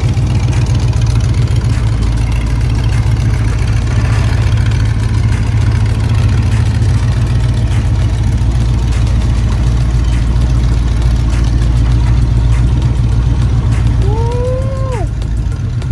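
Lifted pickup monster truck's engine running with a steady deep rumble as it crawls over a steep hill obstacle. Near the end the rumble eases and a short rising-then-falling call is heard.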